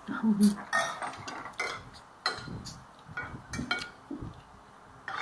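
A spoon clinking and scraping against a plate while eating: about half a dozen irregular, sharp clinks.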